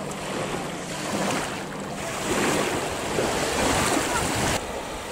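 Sea waves breaking and washing onto the beach, with wind on the microphone. The surf swells louder about two seconds in, then drops off sharply near the end.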